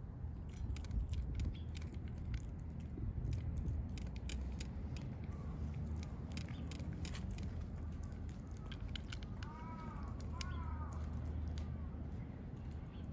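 Stray cats crunching dry cat food: a run of quick, irregular crunching clicks. Near the end come two short rising-and-falling chirps.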